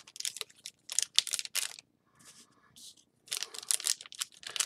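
Trading cards being handled and laid down on a playmat: quick papery flicks and rustles in two short bursts, with a pause between them.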